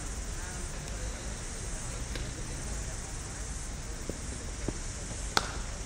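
Steady high-pitched insect buzzing over low outdoor rumble, with a single sharp knock about five seconds in.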